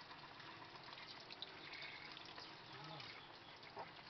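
Faint water trickling and splashing in a sink as live crustaceans are rinsed, with a few light clicks.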